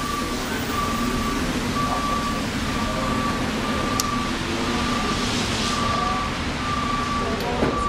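Electronic warning beep repeating about once a second at a steady pitch, over a steady hum of vehicles and traffic.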